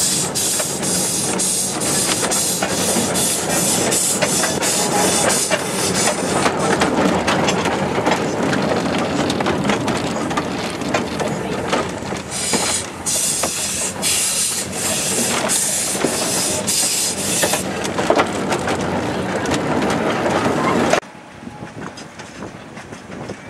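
Small 15-inch gauge steam locomotive running with a train, its exhaust beats coming as a steady rhythm of pulses, over the clatter of carriage wheels on the rails, heard from a riding carriage. The sound cuts off suddenly near the end to something much quieter.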